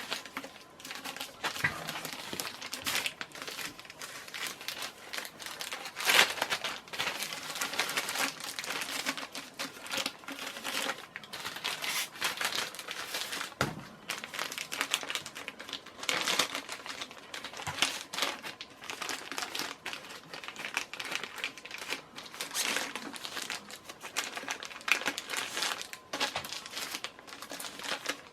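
Packing paper crinkling and rustling in irregular handfuls as a ceiling fan's down rod is unwrapped.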